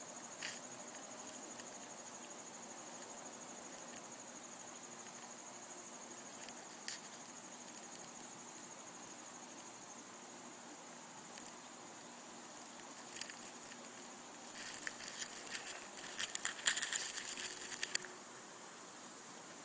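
A faint, steady high-pitched trill that fades out about twelve seconds in, with a few scattered clicks. Near the end comes a few seconds of dense clicking and rustling, the loudest part.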